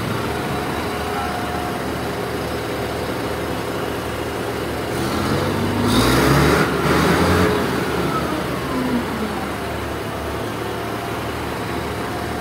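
Heavy diesel engine running steadily. About five seconds in, a louder engine swells up close, with a short hiss, then its pitch slides down as it fades over the next few seconds.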